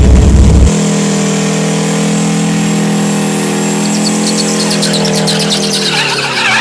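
A deep low rumble cuts off abruptly under a second in, then a diesel drag-racing semi truck's engine is held at steady revs during a burnout, with crackling tyre noise building over the last two seconds or so.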